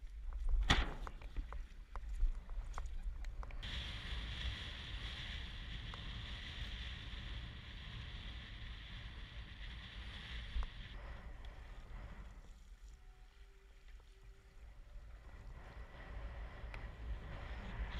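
Wind buffeting the rig-mounted camera's microphone in a steady low rumble while windfoiling, with water rushing under the board. A sharp knock comes just under a second in, and a hiss of spray rises from about four seconds in and fades near eleven seconds.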